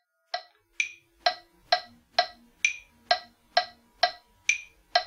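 Metronome clicking steadily at about 130 beats per minute, roughly two clicks a second, with a higher-pitched accented click on every fourth beat marking the start of each bar.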